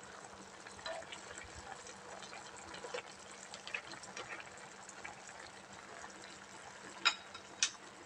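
Pan of mussel soup simmering: a soft bubbling hiss with many small pops, and two sharper clicks near the end.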